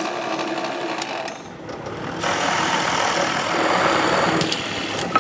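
Powermatic drill press running with a steady motor hum; from about two seconds in it turns louder and rougher as the spinning bit bores into a piece of wood.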